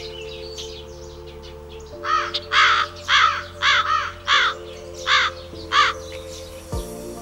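A crow cawing: a run of about eight harsh caws, beginning about two seconds in, over background music of sustained chords.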